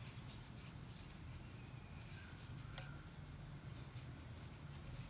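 Faint scratching and ticking of a steel crochet hook drawing milk cotton yarn through single crochet stitches, over a low steady hum.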